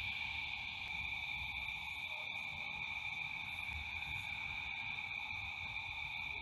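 Steady chorus of night insects, high-pitched and unbroken, over a faint low rumble.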